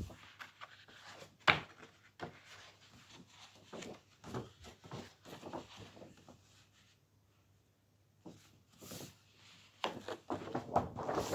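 A large paper booklet from a vinyl record package being handled and opened: rustling paper and light knocks, with one sharp click about a second and a half in and a brief lull past the middle.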